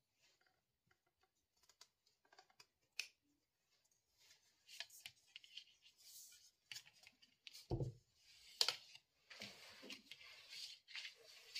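Plastic security camera and its cable handled on a table: small clicks and scratchy rustles, a sharper click about three seconds in, and a low thump a little past halfway as the camera is set down, followed by another click and more rustling.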